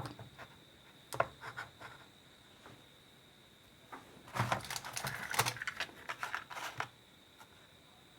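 Light clicks and taps of small parts and tools being handled on a phone repair bench. There are a few separate clicks in the first two seconds, then a quick run of clicks and taps from about four to seven seconds in.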